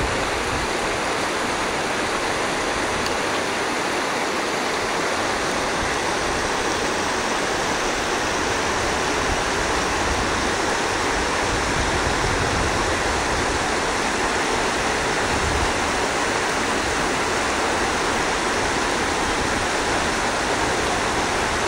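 Shallow, rocky river running over stones in small rapids: a steady, unbroken rush of water.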